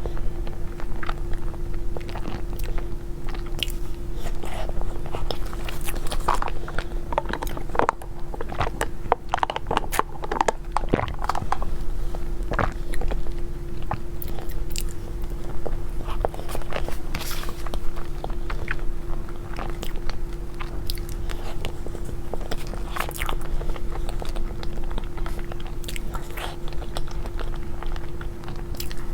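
Close-miked eating of chocolate mousse cake: irregular chewing, mouth smacks and small clicks, over a steady hum.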